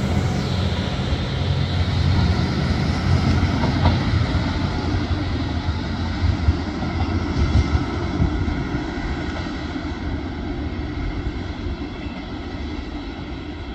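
Trenord ATR 125 diesel multiple unit pulling away, its diesel engine running with a steady low hum over the noise of wheels on the rails, growing gradually fainter as it goes.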